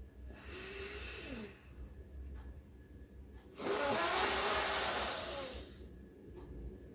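A woman breathing hard through her nose in a breathing exercise: a breath drawn in through both nostrils for about a second and a half, then, about two seconds later, a louder, longer breath pushed out through one nostril while the other is held shut with a finger.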